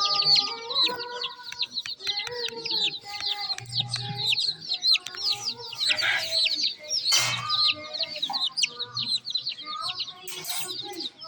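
A group of baby chicks peeping continuously: a dense chorus of short, high, downward-sliding peeps, with some lower, longer calls underneath.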